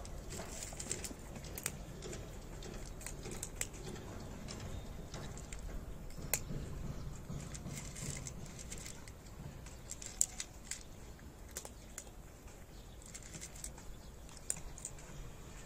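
Cat eating dry kibble from a plate: irregular crunches and sharp little clicks, some louder than others.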